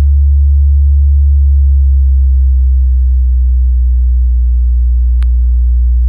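A deep bass sine test tone from the woofer of an AVE Revo 15 DSP powered speaker during a downward frequency sweep; the tone drops slightly about two seconds in. A single short click sounds about five seconds in.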